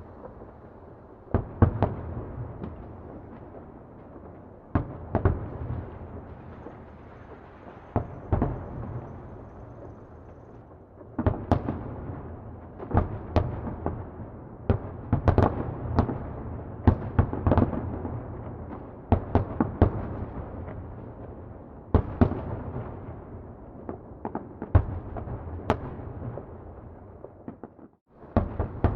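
Distant fireworks exploding: irregular bangs, sometimes several in quick succession, over a continuous low rumble of echoes. The bursts come thickest in the middle stretch, and the sound cuts out briefly near the end.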